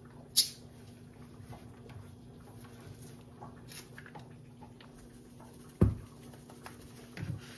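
Food-prep handling sounds as chopped green onion is scraped and dropped by hand into a plastic mixing bowl of pickled cucumbers: light patter and small clicks, with a sharp click just after the start. Near the end a dull thud, then a smaller one, as items are set down, over a faint steady hum.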